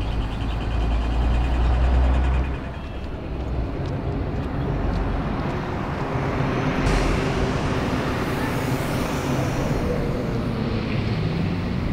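Road traffic on a city street. A heavy vehicle's low engine rumble dominates for the first two and a half seconds, then vehicles keep passing, and a hiss starts suddenly about seven seconds in and fades a few seconds later.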